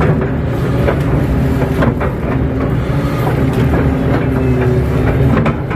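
Kato crawler excavator's diesel engine running steadily under hydraulic load as the bucket works through wet mud, heard from inside the cab, with a few short clanks and knocks.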